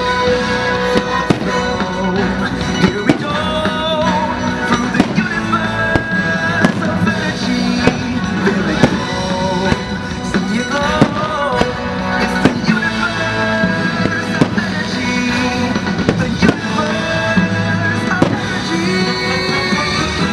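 Fireworks bursting in many irregular bangs over loud show music played through outdoor loudspeakers.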